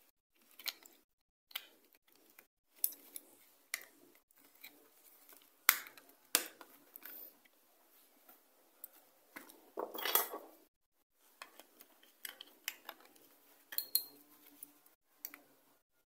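Scattered clicks, taps and rustles of hands handling and pressing together the plastic housing of a KGTEL keypad mobile phone during reassembly, with a longer rubbing noise about ten seconds in.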